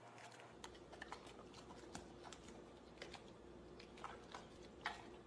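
Golden retriever nosing and licking at a cracker on a plate: faint, irregular little clicks and taps of its mouth and the cracker against the plate, with a couple of louder clicks near the end.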